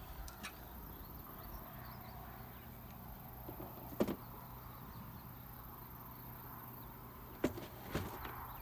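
A few short, sharp metallic clicks, one about four seconds in and two near the end, as a battery cable is fitted onto a riding mower's battery terminal with pliers. A steady low hum runs underneath.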